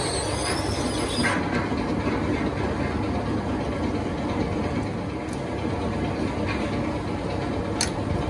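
Workshop machinery, likely a metal lathe, running with a steady rumble. There is a brief high squeal in the first second and a single sharp click near the end.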